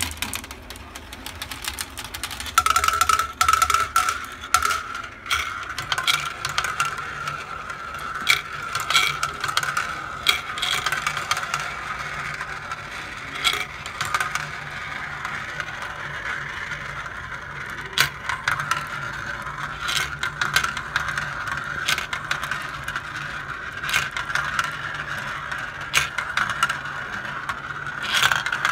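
Glass marbles rolling down a plastic marble run and circling in its plastic funnel bowls: a steady rolling sound broken by many sharp clicks as the marbles knock together and drop.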